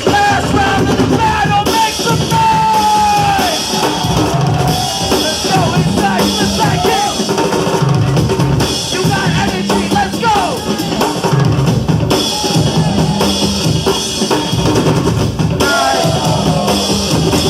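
Loud hip-hop break-beat music with a heavy, regular kick-and-snare drum beat, played by the DJ for the breakdancers, with voices over it.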